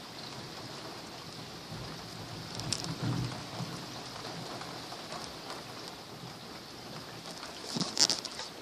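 Distant fireworks over a steady outdoor hiss: a low rumbling boom about two to three seconds in, then a sharp bang near the end, the loudest sound.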